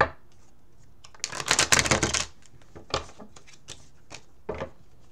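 A tarot deck being shuffled: a dense run of rapid card flicks lasting about a second, with single sharp card snaps at the start and twice more after it.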